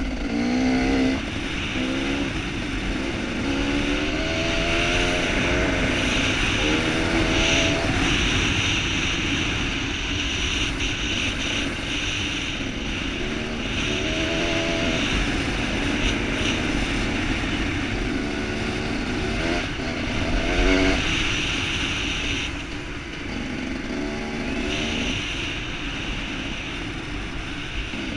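Dirt bike engine under hard acceleration, its revs climbing and dropping back several times as it runs through the gears. A steady rushing wind noise on the helmet-mounted camera runs underneath.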